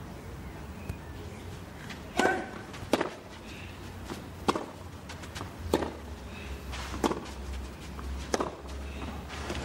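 Tennis ball struck by racquets in a rally on a clay court: six crisp hits, the first a little after two seconds and then about one every 1.3 seconds.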